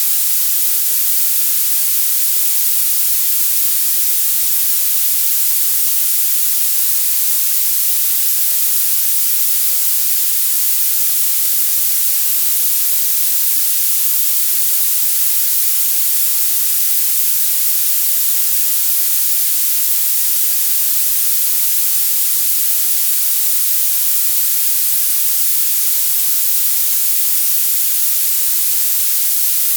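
Violet noise: a steady, hard high hiss with nearly all its energy in the highest frequencies and almost nothing in the lows, unchanging throughout.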